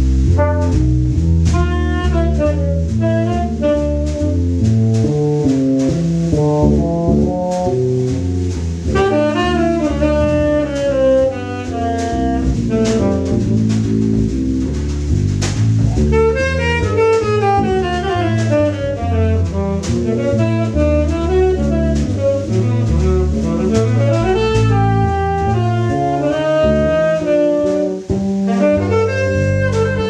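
Free-jazz group improvising: saxophone playing fast, winding lines over double bass, electric bass and drum kit, with trumpet joining at the start.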